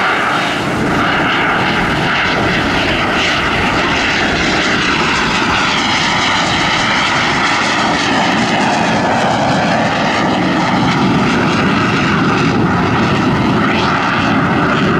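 Aermacchi MB-339 jet trainer's single Rolls-Royce Viper turbojet heard in flight during an aerobatic display, loud and continuous, its pitch sagging and then rising again about midway through.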